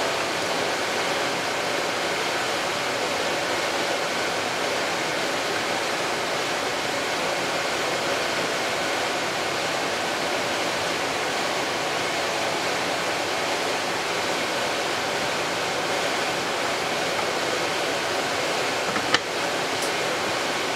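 Steady, even background hiss with no clear source, with one sharp click near the end as the aluminium transaxle case half is handled and fitted back on.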